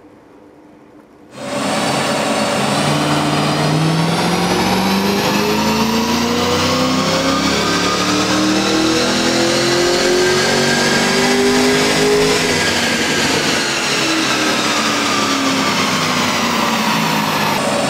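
HSV GTS's naturally aspirated V8 making a wide-open-throttle power run in fourth gear on a chassis dyno. After a quiet first second or so it comes in suddenly and loud, its pitch climbs steadily for about ten seconds, then falls away as the engine winds down.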